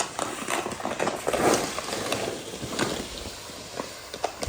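Snow being shoveled: a shovel scraping and pushing packed snow in irregular strokes, with crunching.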